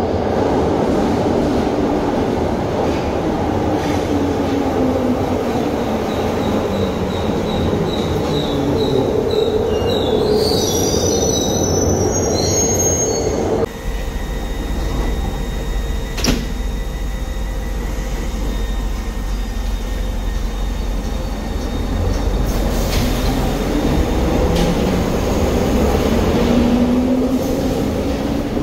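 Glasgow Subway train braking into the platform, its motor whine falling in pitch and its wheels squealing on the track. After a sudden change about halfway, a train stands at the platform and then pulls away, its motor whine rising as it speeds up.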